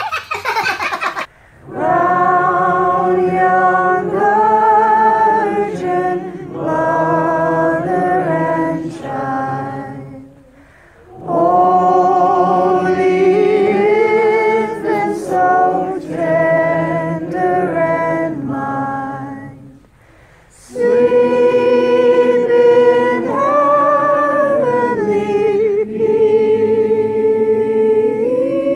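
A group of voices singing a Christmas carol a cappella, in long held phrases with short breaks about ten and twenty seconds in. Laughter cuts off about a second in, just before the singing begins.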